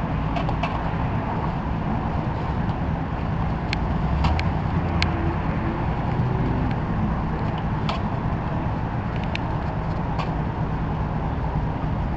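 Steady low outdoor rumble with a few sharp, light clicks and taps scattered through it.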